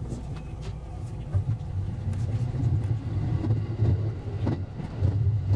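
Low rumble of a JR West 223 series electric train running, heard from the cab, with scattered short clicks from the track; it grows louder about a second in.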